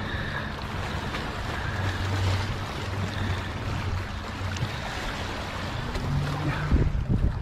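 Seawater washing over the sandstone shoreline rocks as a steady wash, with a low steady hum underneath. A few short bumps come near the end.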